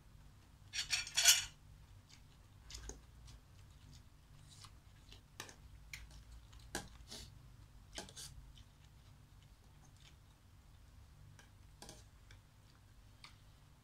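Metal fork and spoon clinking and scraping against a stainless steel pot of noodles. There is a burst of clattering about a second in, then scattered single clinks.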